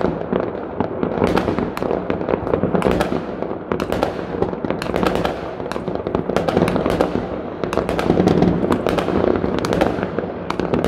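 Many fireworks going off at once: a dense, continuous barrage of rocket bangs and crackle, with some bursts close by.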